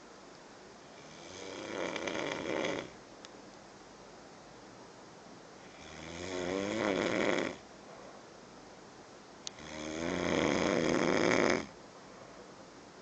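A sleeping person snoring: three long snores about four seconds apart, each swelling in loudness and then stopping abruptly, with quiet between them.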